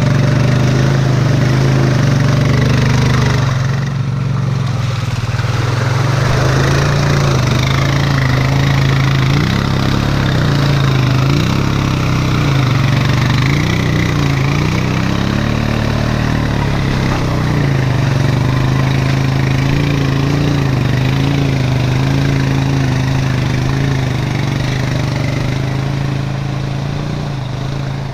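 Honda Rancher 420 ATV's single-cylinder four-stroke engine running under throttle through mud and water, its pitch rising and falling as the throttle is worked.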